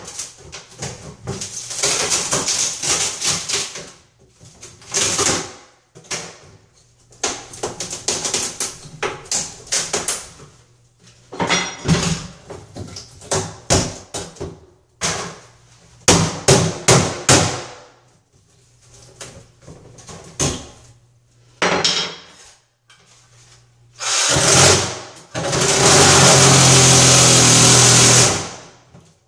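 Hammer blows breaking through a fiberglass tub surround, in quick clusters of sharp strikes with short pauses. About 24 seconds in, a cordless reciprocating saw starts, then runs steadily cutting the fiberglass until near the end.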